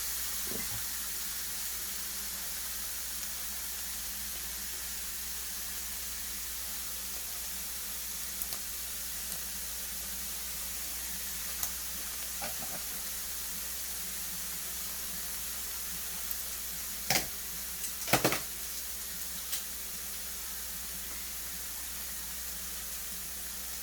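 Carrots, scallions and garlic sizzling steadily in hot oil in a pan, with a few light clicks and two louder knocks, a spoon or spatula against the pan, about two-thirds of the way through.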